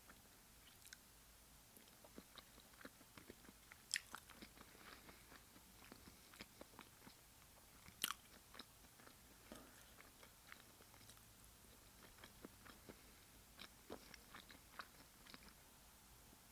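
Faint, close chewing and wet mouth sounds of a person eating raw fish: soft irregular smacks and clicks, with two sharper clicks about four and eight seconds in.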